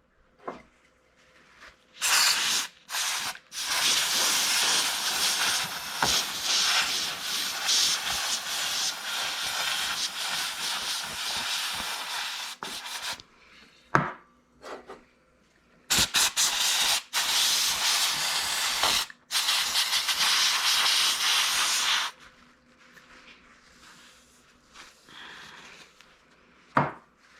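Brush scrubbing a mixing-console channel strip wet with spray cleaner: a long stretch of scratchy scrubbing starting about two seconds in, a pause, then a second stretch of scrubbing before it goes quiet.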